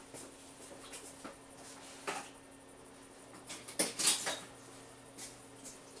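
Scattered light knocks and clinks of tools and parts being handled, the loudest cluster about four seconds in, over a steady low hum.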